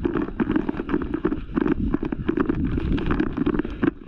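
A player moving quickly on foot: irregular, rapid footfalls and gear jostling close to the microphone, with wind buffeting the microphone. It stops abruptly near the end.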